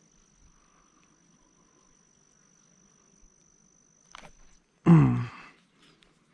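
A single high, steady insect trill, typical of a cricket, that stops about four and a half seconds in; just after a small click, a short, loud, low grunt-like call falls in pitch about five seconds in.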